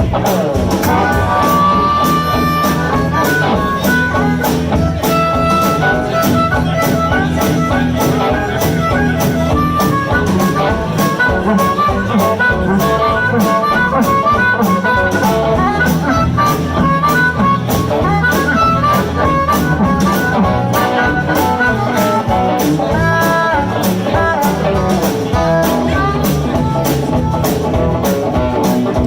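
Live electric blues band playing an instrumental break between verses: a lead instrument plays held and bending notes over bass and a steady drum beat.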